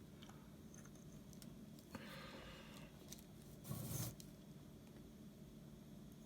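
Faint room tone with small handling noises from working on wires and a circuit board: a soft rustle about two seconds in and a brief louder scrape about four seconds in.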